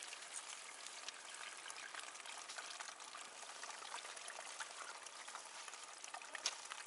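Water pouring steadily from the spigot of a plastic 5-gallon water jug into a solar camp shower bag. The jug has been pierced to vent, so the water flows freely. A single sharp click comes near the end.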